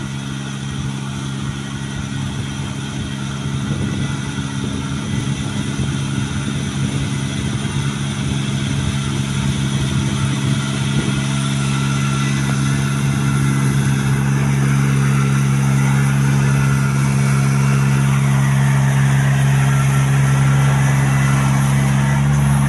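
Riding rice transplanter's small engine running steadily, growing louder as the machine comes closer.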